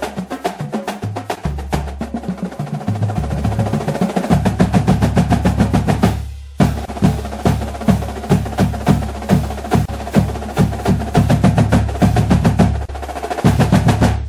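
Drum-heavy music track: rapid, evenly spaced snare-like hits over a sustained bass line. The beat drops out briefly about six seconds in, then picks straight back up.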